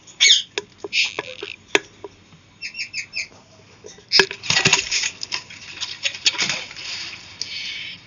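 Knocks, clicks and scraping of a hand working inside a wooden nest box, with a quick run of about five short high chirps from a bird about three seconds in, then a long scratchy rustle through the second half.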